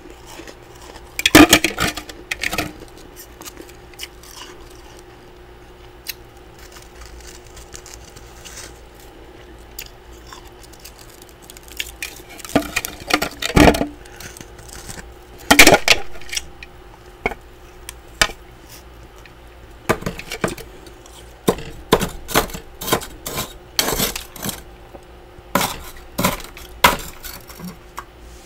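Freezer frost being crunched in loud, irregular bites and scraped off a frost-caked freezer wall with a spatula, with clinks against the bowl. The second half is a dense run of sharp crackles and clicks.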